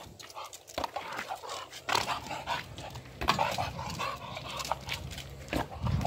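Old English bulldog making excited noises as it leaps at a swinging tetherball, with a few sharp smacks as the ball is struck.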